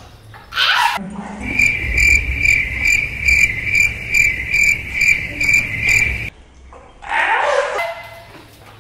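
Added sound effect: a high, cricket-like chirping tone pulsing about twice a second over a low beat, cutting off suddenly.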